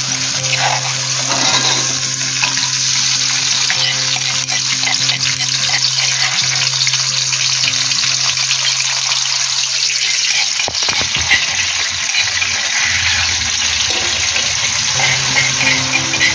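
Chopped tomato and chili for sambal sizzling as they fry in oil in a metal wok, with a metal spatula and spoon stirring and scraping against the pan.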